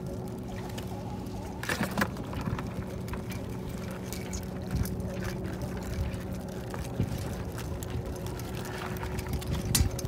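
A low, steady motor hum under rumbling noise, with a few light clicks and knocks about two seconds in and again near the end.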